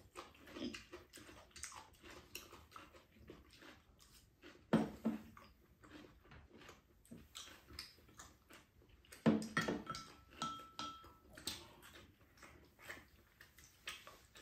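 People eating at a table: chewing and mouth noises with small clicks and clinks of chopsticks and a spoon against ceramic bowls, two louder sudden sounds about five and nine seconds in, and a short ringing tone just after ten seconds.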